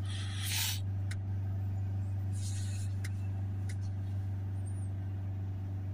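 Ford 2.0 TDCi diesel engine running steadily at held high revs, around 3000 RPM, to burn through DPF cleaning fluid while the particulate filter's back-pressure falls. Two brief hissing noises, at the start and about two and a half seconds in, and a few faint clicks.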